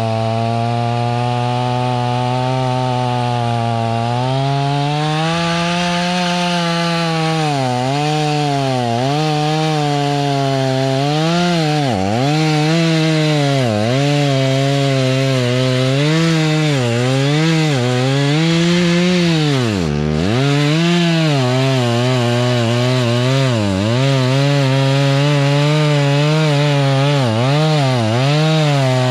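Tractor engine driving a PTO stump grinder, its pitch sagging and recovering again and again as the cutter wheel bites into the stump and loads it. Over it runs the rough, scratchy noise of the wheel chewing wood.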